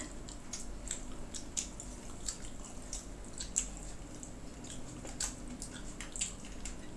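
Close-miked wet chewing and lip-smacking of people eating saucy buffalo chicken wings: a run of small, irregular smacks and clicks.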